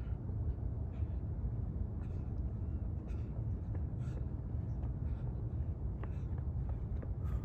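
Wind buffeting the microphone: a steady low rumble, with faint scattered ticks above it.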